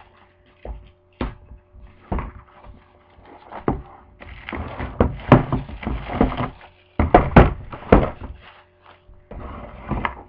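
Wrapping paper being torn and pulled off a boxed electronics kit, sped up: knocks and thuds of the box being handled, then stretches of paper rustling and tearing.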